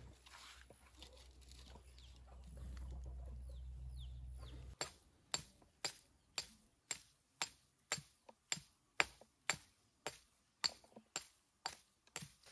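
A low rumble with a few faint bird chirps, which cuts off about five seconds in; then a steady run of sharp knocks, about two a second, as something hard is struck over and over by hand.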